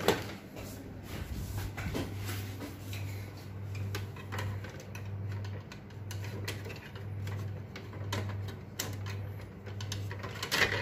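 Light clicks and taps of tweezers working a small plastic lever inside an HP LaserJet Pro MFP M227fdn's cartridge bay. A low hum pulses about one and a half times a second underneath.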